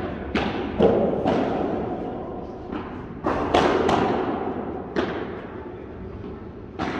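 Padel rally: sharp pops of the ball struck by padel rackets and bouncing off the court and glass walls, about nine hits at uneven spacing, each ringing out with a long echo in a large hall.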